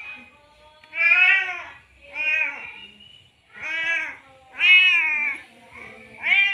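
Male domestic cat in heat meowing over and over, about five loud, drawn-out meows roughly a second apart, each rising and falling in pitch: a tomcat's mating call to a female.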